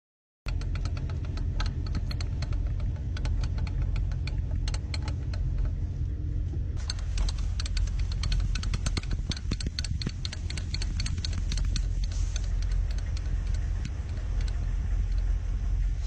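Steady low rumble with dense clicking and rattling, starting abruptly about half a second in: handling noise and wind on a GoPro microphone as the crew handles the M119A3 howitzer, with no shot fired.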